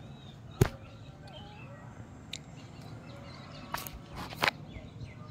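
Knocks and taps of a Hanuman langur handling the recording phone at close range: one loud knock about half a second in, a lighter tap, then a cluster of knocks near the end. Faint bird chirps in the background.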